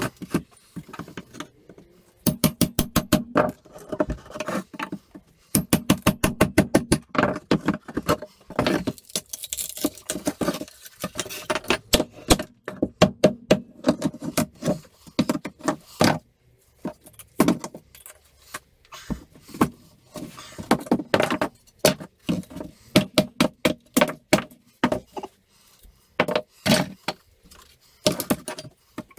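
Claw hammer striking wooden pallet boards and blocks to knock them apart, in quick runs of many blows a second broken by short pauses.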